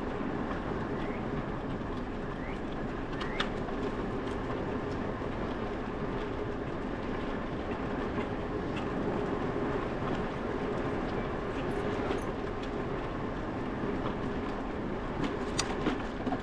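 A bicycle rolling along a concrete path: a steady rumble of tyres and wind, with an occasional sharp tick, one a few seconds in and a couple near the end.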